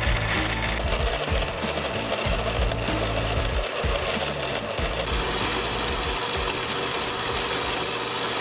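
Jet metal-cutting band saw running steadily, its blade sawing through a metal bar.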